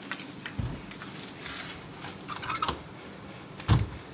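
Small clicks and handling knocks, then a dull thump near the end as the ice block machine's lid is shut and locked.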